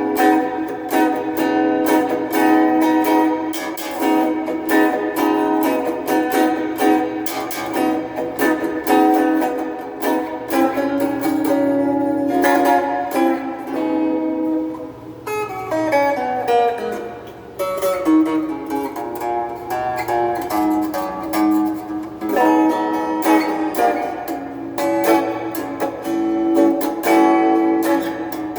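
Donner DST-80 strat-style electric guitar played clean through its small included practice amp, with fast picked single notes and chords. About halfway through the pitch slides steadily down for a couple of seconds before the picking resumes.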